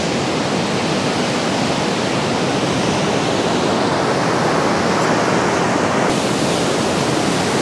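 Ocean surf breaking on the beach in a steady rush of noise, turning hissier about six seconds in.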